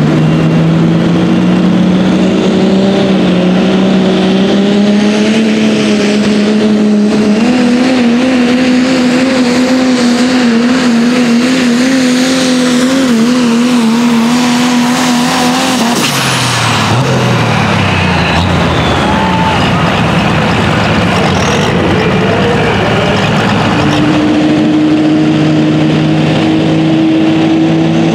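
Pro stock diesel pickup pulling a sled: its engine revs climb over the first several seconds, then hold high and wavering under load. About sixteen seconds in the revs drop away sharply. Near the end another diesel truck holds a steady high idle.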